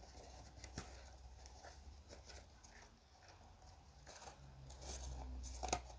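Faint rustling and light taps of a cardboard watch box and paper booklets being handled, with a sharper tap near the end.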